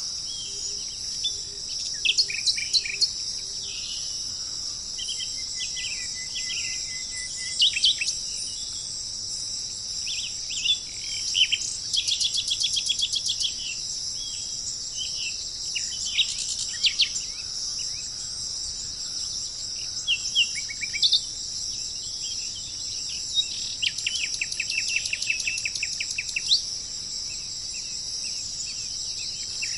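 Steady high-pitched insect chorus with wild birds calling over it: scattered short chirps and two runs of rapid trilling, one about twelve seconds in and one about twenty-four seconds in.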